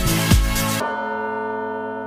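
Dance music with a steady pounding beat stops abruptly just under a second in, leaving a bell-like chord ringing and slowly fading.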